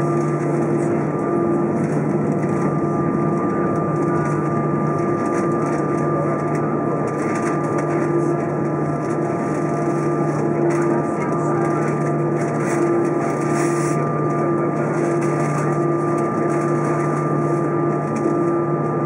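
Airbus A320 airliner taxiing, its jet engines running at low taxi power: a steady whine with a low hum under it.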